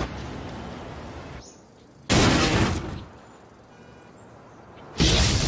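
A sudden loud crash near the end as something smashes through a house roof, after a short loud burst of noise about two seconds in.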